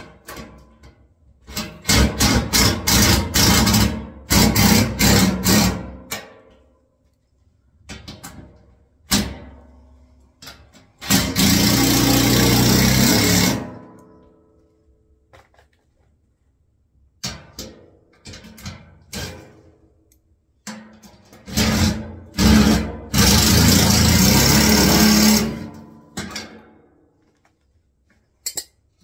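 Cordless drill-driver running in bursts, driving nuts onto the bolts under a steel wheelbarrow tray. First comes a stuttering string of short pulses, then two longer steady runs of a few seconds each, with lighter knocks of handling metal parts in between.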